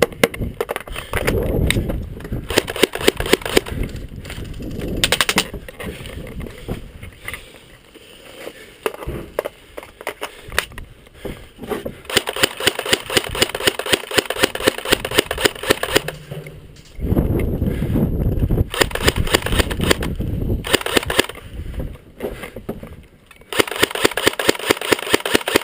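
Airsoft electric rifle, an FN F2000 replica, firing on full auto in several rapid bursts of evenly spaced shots. The longest burst runs for about four seconds midway, and another starts near the end. Rustling movement noise comes between the bursts.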